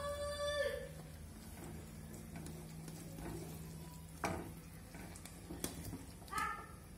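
Wooden spoon stirring rice flour into hot water in a metal kadai: wet stirring and scraping in the pan, with a couple of sharp knocks of the spoon against the pan about four and five and a half seconds in. A short high-pitched call, like a child's voice or a cat, sounds at the start and again near the end.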